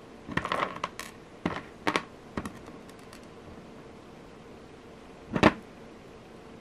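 Small handling clicks and taps as a metal jump ring and jewelry pliers are picked up from the work table: several light clicks in the first three seconds, then one louder short knock about five and a half seconds in.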